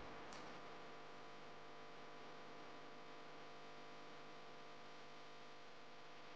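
A faint, steady electrical hum, with one short faint click just after the start.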